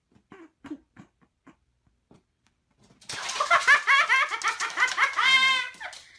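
A person bursts out laughing hard about three seconds in, with a long run of rapid laughs. A few faint soft taps come before it.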